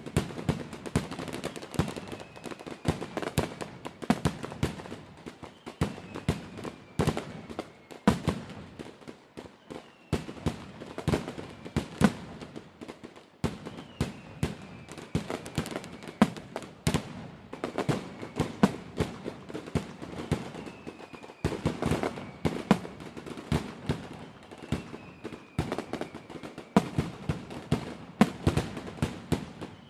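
Fireworks going off: a dense, irregular run of sharp bangs and cracks, with a faint falling whistle every two to three seconds.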